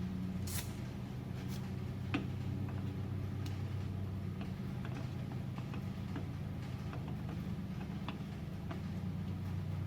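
Scattered light metallic clicks and ticks as the bottom bolts on a truck's front hub assembly are run in by hand, over a steady low hum.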